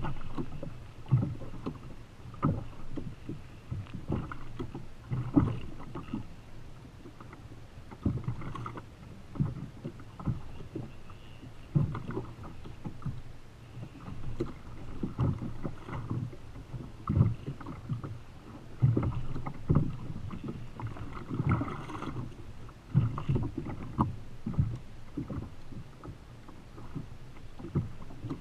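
Choppy sea slapping against the hull of a Feel Free Lure 13.5 fishing kayak, with irregular low thuds and splashes every second or two.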